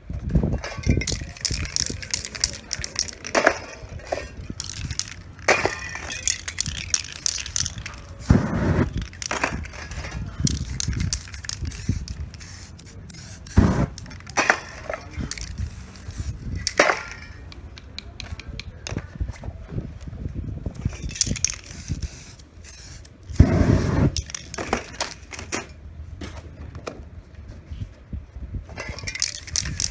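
Aerosol spray paint cans hissing in repeated bursts of a second or more, with sharp knocks and thumps between the bursts.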